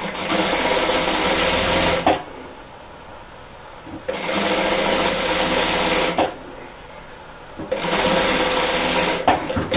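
Electric sewing machine stitching in three runs of about two seconds each, stopping for a second or two between them while the fabric is guided under the presser foot.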